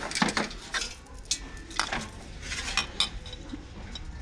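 Hard decor items clinking and knocking together as they are handled on a store shelf: a string of sharp, separate clinks, several in the first second and a few more later.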